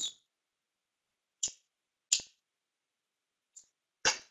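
Silence broken by three short, sharp clicks about a second apart, then a brief noisy sound near the end.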